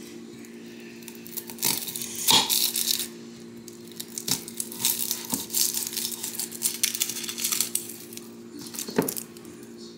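A handheld kitchen slicer being worked on a shallot: scattered plastic clicks and knocks, the loudest about two seconds in, with crinkly, papery rustling through the middle. A steady low hum runs underneath.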